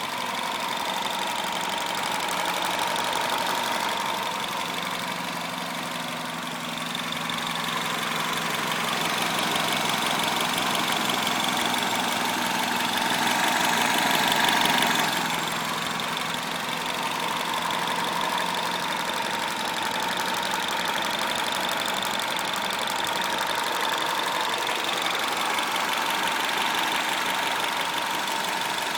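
THP 175 1.6-litre turbocharged petrol four-cylinder engine running steadily, with a thin high whine over it; it grows louder toward the middle and drops back about fifteen seconds in.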